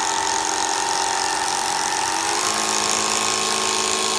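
TINTON LIFE cordless stick vacuum running, its motor and spiral brush roll spinning: a steady motor whine that steps up in pitch a little past halfway through.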